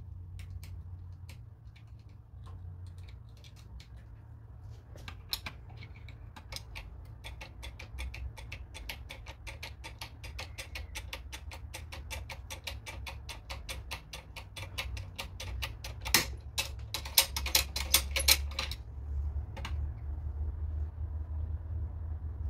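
Self-impression lock pick working inside a Securemme lock: metallic clicks and ticks, sparse at first, then a fast run of ticks from about five seconds in, with a few louder sharp clicks near the end, over a steady low hum.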